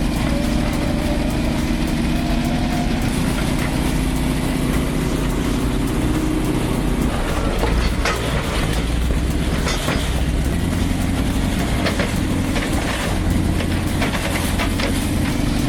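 Large crawler bulldozer's diesel engine running steadily, with metallic clanks and knocks from the steel tracks that come in about halfway through.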